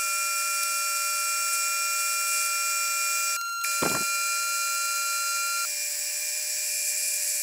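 Metal lathe turning and drilling a small metal tube, the footage fast-forwarded: a steady high whine of several tones, broken off briefly about a third of the way in, with a short lower sweep just after it.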